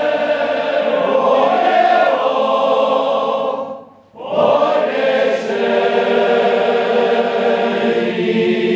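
Men's choir singing unaccompanied, a sustained sung phrase that breaks off briefly about four seconds in, then picks up again on a new phrase.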